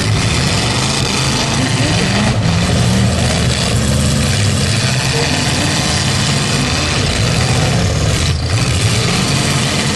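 Several full-size demolition derby car engines running at once, revving up and dropping back unevenly as the cars push against each other.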